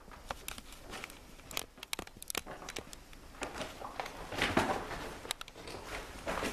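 Footsteps crunching over debris and rubble on a hard floor, with scattered clicks and crackles underfoot that become denser and louder about halfway through.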